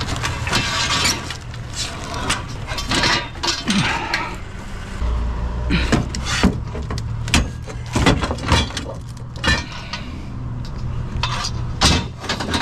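A dog barking repeatedly at the scrapper, mixed with the clatter and clink of scrap pieces being handled and tossed.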